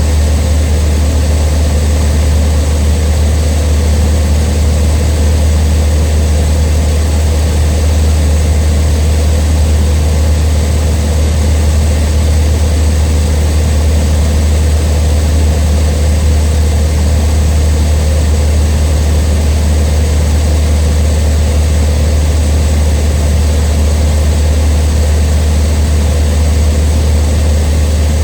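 Cessna 152's four-cylinder Lycoming engine and propeller droning steadily in flight: a loud, deep, even hum with no change in power.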